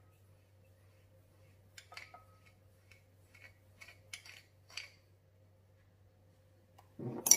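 Metal spoon scooping sugar from a glass jar and tipping it into a glass mixing bowl: a run of faint scrapes and light clinks, then a louder knock near the end.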